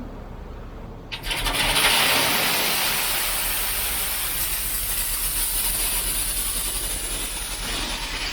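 Heavy machinery: a low engine rumble, then a loud rushing, grinding noise that starts suddenly about a second in and holds steady.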